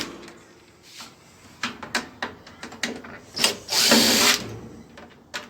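Power drill-driver run in a few short bursts, the longest about four seconds in, backing out the screws that hold a microwave's circuit board.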